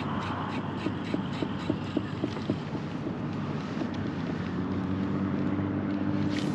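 Wind buffeting the microphone over small waves slapping a kayak hull, with light, regular ticking, about three a second, in the first couple of seconds and a steady low hum joining about four and a half seconds in.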